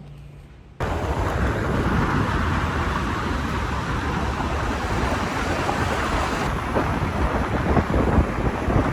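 Wind buffeting the microphone on a moving motorbike: a loud, steady, rumbling noise that cuts in suddenly about a second in.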